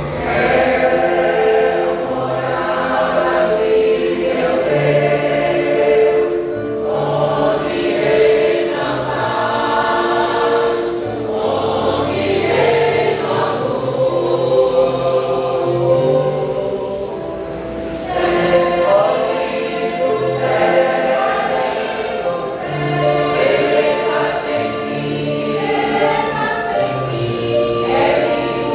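Church vocal group singing a gospel hymn in choral harmony, with sustained held notes.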